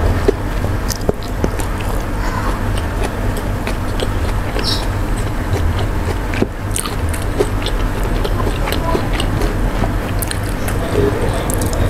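Close-miked chewing and biting of food eaten by hand, rice with fried tempe, with many short wet mouth clicks and crunches scattered throughout. A steady low hum sits underneath.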